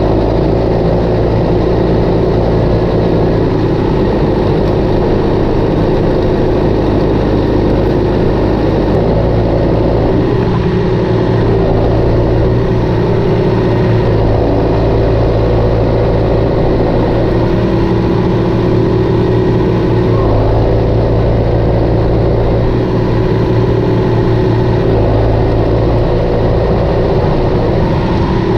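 Four-cylinder John Deere tractor engine running steadily at an even speed while pulling a cultivator through the soil.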